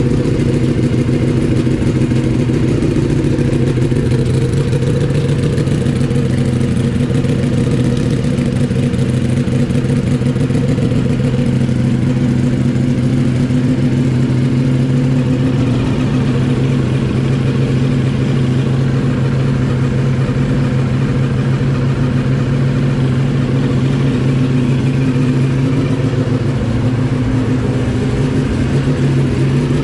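2021 Ducati Panigale V4S's 1103 cc V4 engine idling steadily through a Termignoni D195 titanium race exhaust, loud and even.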